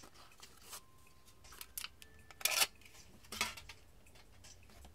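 Thin plastic wrap crinkling in a few short rustling bursts as it is pulled off a small plastic cup, the loudest about two and a half seconds in.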